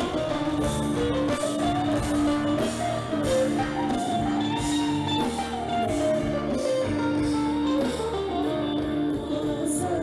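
Live band music with guitars prominent, a melody line moving over a repeated held low note.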